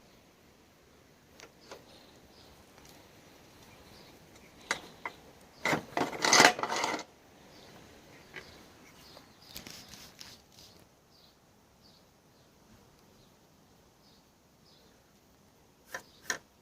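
Metallic clicks and knocks, with a short clatter of rapid knocks about six seconds in and two sharp clicks near the end.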